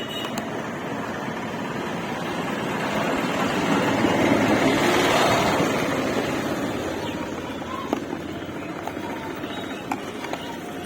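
A vehicle passing by: its noise builds, peaks about five seconds in and fades away, with a few faint clicks near the end.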